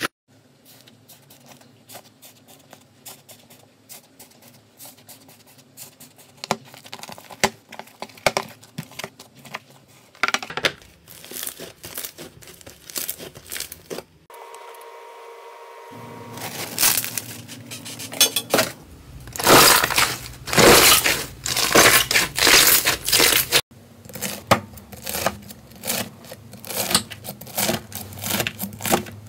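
Slime and clay being squeezed, pressed and poked by hand, giving runs of crackly, crinkly clicks and pops. The sound changes at each cut between clips, and the crackling is densest and loudest a little past the middle.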